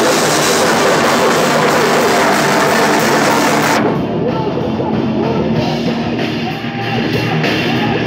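Hardcore band playing loud live rock: a pounding drum kit with crashing cymbals under guitars. About halfway through, the high cymbal wash drops away and the music carries on thinner and a little quieter.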